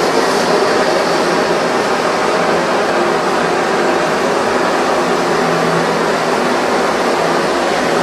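Primus stove's pressurised kerosene burner running with a steady, even hiss.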